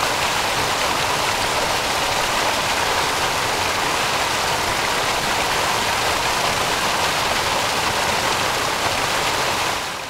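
Shallow stream water running steadily, an even rushing hiss that fades out near the end.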